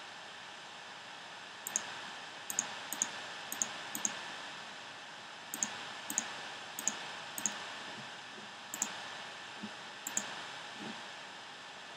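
Computer mouse clicks: about a dozen single clicks at irregular intervals, some in quick pairs, over a steady background hiss.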